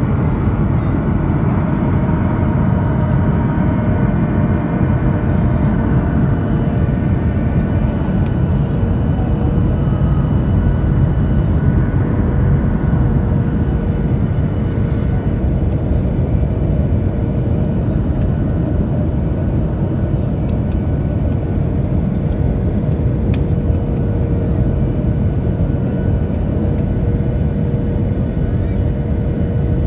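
Steady cabin noise inside a Boeing 737-800 on approach: a low, even rush of its CFM56-7B turbofan engines and the airflow, with a faint held hum.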